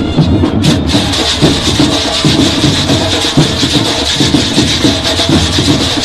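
A section of metal güiros scraped in a fast, steady rhythm, making a loud rasping hiss over a marching band's drumbeat.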